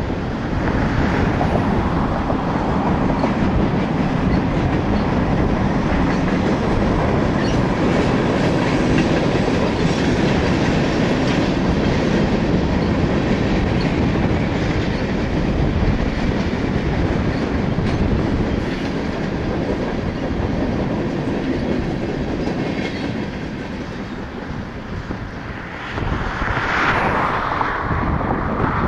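Freight cars rolling past close by: a steady rumble with the clickety-clack of wheels over the rail joints. The sound eases slightly shortly before the end, then turns louder and brighter for a couple of seconds.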